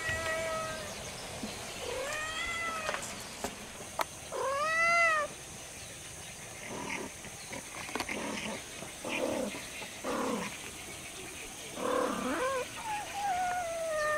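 Domestic cat meowing: three rising-and-falling meows in the first five seconds, shorter, fainter calls after them, then a long meow that falls in pitch near the end.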